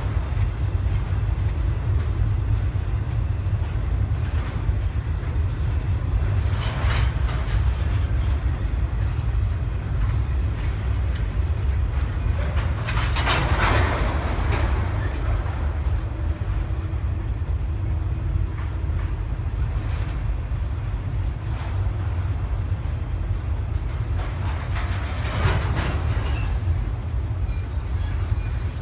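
Double-stack well cars of a CSX intermodal freight train rolling past: a steady low rumble, with louder bursts of wheel clatter about a quarter of the way in, around halfway, and near the end.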